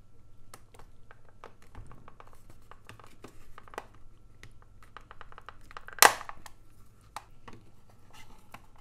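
A flat metal pry tool prising at the seam of a Canon LC-E5E charger's plastic case: a run of small clicks and creaks as the snap-fit halves are worked apart, with one loud sharp snap about six seconds in as a latch gives.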